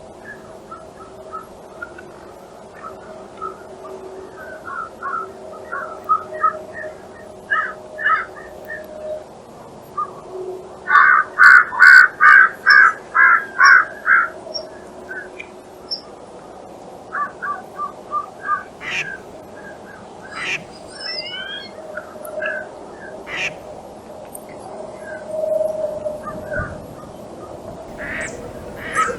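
Wild birds calling: a string of short, harsh, caw-like calls. The loudest is a quick run of about nine near the middle, with scattered calls before and after.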